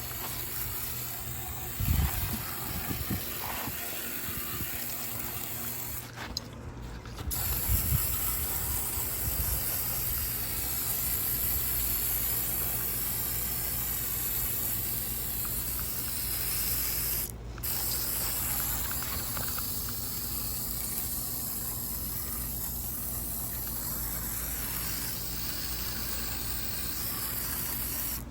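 Aerosol can of paint stripper spraying in long hissing blasts, stopping for about a second some six seconds in and briefly again later. A few low knocks from handling the can and part come early on and just after the first pause.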